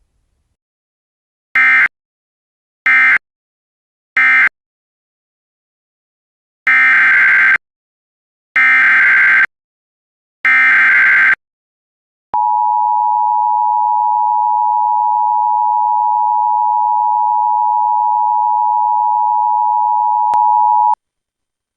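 Emergency Alert System signalling: three short SAME data bursts (the end-of-message code), then three longer SAME header bursts, then the two-tone attention signal. The attention signal is a steady, loud two-note tone that holds for about eight and a half seconds and stops about a second before the next message is read.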